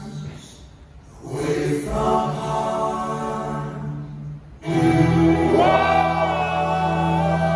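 Live band playing a slow ballad: several voices singing held harmony chords. The sound drops back about a second in, and a fuller, louder chord with bass comes in a little past halfway.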